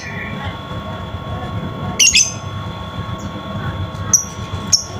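Lovebird chirping: a quick burst of several shrill chirps about two seconds in, then two single short high chirps near the end, over a steady low rumble.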